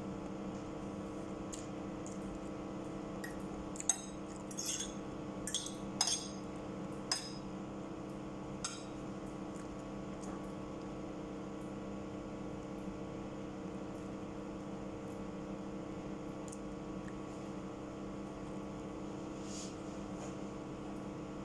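Metal fork clinking and scraping against a plate about half a dozen times, clustered in a few seconds near the start, over a steady electrical hum from a kitchen appliance.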